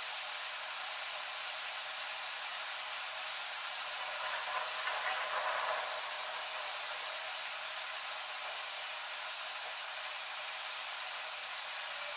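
Aerosol spray-paint can hissing steadily, a little louder for a moment about four to six seconds in.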